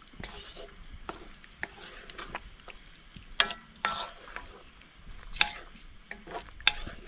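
A spoon stirring and scraping in a cooking pan of thick sweet-and-sour sauce, with irregular clinks and scrapes against the pan; the loudest come about three and a half, five and a half and nearly seven seconds in.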